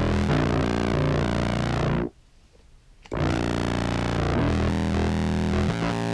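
Low sustained contrabass clarinet tones, fuzzed and run through a filter pedal in random mode, so the tone shifts in sudden steps. The sound cuts off about two seconds in and comes back after about a second's gap.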